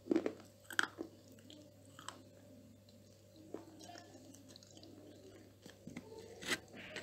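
A mouthful of baked edible white clay (ayilo, calabash chalk) being chewed: a few sharp crunches in the first second, then softer, sparser crunching, and one more sharp crunch near the end.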